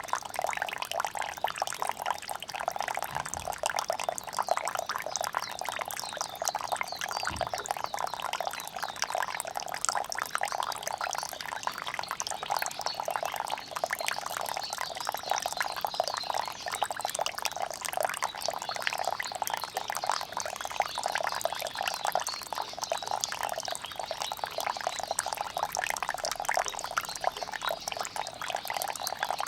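Rainwater pouring and splashing steadily, a dense patter of drops and trickling.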